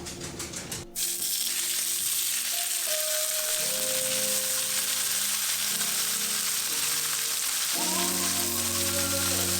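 Food sizzling steadily in a hot frying pan, starting suddenly about a second in, over background music.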